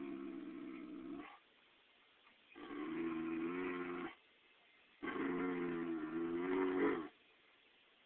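Anatolian Shepherd dog 'talking': long, drawn-out, moaning vocal calls with a slightly wavering pitch, three in a row, each about one and a half to two seconds long, with short pauses between them.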